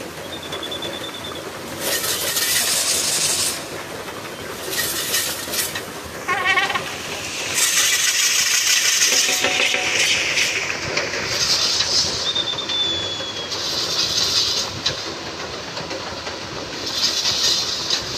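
A yoked pair of race bulls drags a wooden beam and a round iron-framed rig around the circular pit. The rig gives a continuous rattling clatter, louder in surges as it swings past, along with hooves on loose dirt. A short whistle sounds about half a second in and again around twelve seconds, and brief shouts come near six and a half and ten seconds.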